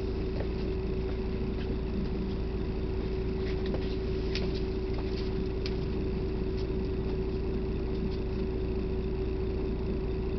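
Steady vehicle engine and road rumble heard inside the cabin, with a constant drone. A few light clicks and rattles fall around the middle.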